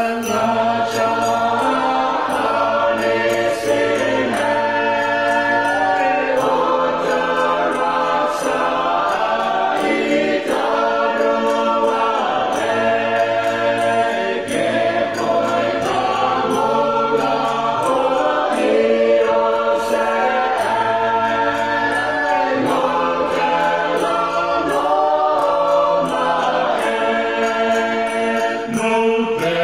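A choir singing a Rotuman hymn in harmony. The chords are held and change every second or two, with no break.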